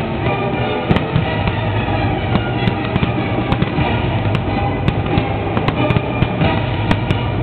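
Fireworks finale: aerial shells going off in quick, irregular bangs and crackles, with music playing underneath.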